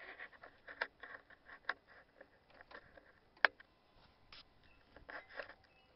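Scattered light clicks and taps from a toddler handling a high-wheel string trimmer's handlebar and controls, with one sharp click about three and a half seconds in.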